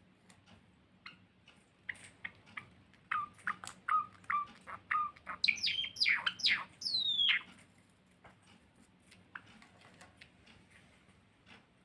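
Caged pet finches chirping: a run of short, repeated chirps that builds into several loud calls sweeping downward in pitch about six to seven seconds in, then only faint light ticks.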